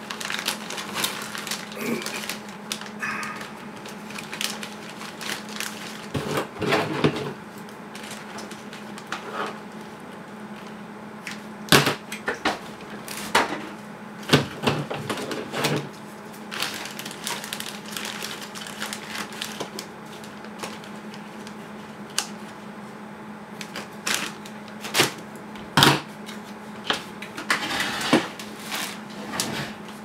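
Clear plastic zip-lock bag of heat-shrink tubing crinkling and rustling as hands dig through it, with scattered sharp clicks and taps. A steady low hum runs underneath.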